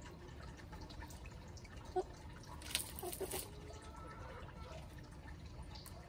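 Hens foraging in dry leaf litter: a few sharp ticks and a brief scratchy rustle around the middle, over a steady low background rumble.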